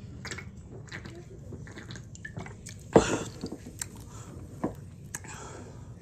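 A person gulping carbonated soda from a can, with wet mouth and swallowing clicks and one louder sudden sound about three seconds in. A breathy exhale follows near the end.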